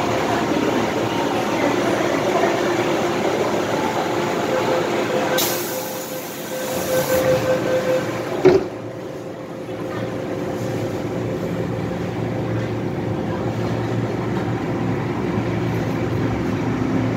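MTR M-Train doors closing and the train pulling away. A series of short warning beeps and a high hiss come first, the doors shut with one thump about eight and a half seconds in, then the train's running and traction noise builds low and steady.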